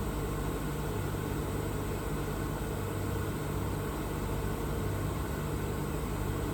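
Mecal MC 304 Pioneer CNC machining centre running, a steady machine hum with a low drone and even hiss that does not change.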